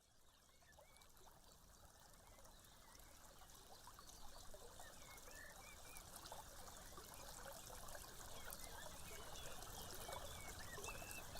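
Nature ambience of trickling, running water, with scattered short high chirps over it, fading in gradually from near silence.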